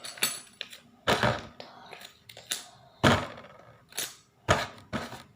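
Monopoly game box and its contents being handled: an irregular series of knocks and short rustles, loudest about a second in and again about three seconds in.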